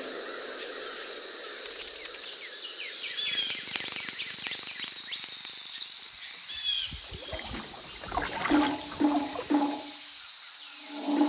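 Summer outdoor nature ambience: a steady high-pitched insect drone with birds chirping, two short rapid trills, and low repeated calls near the end.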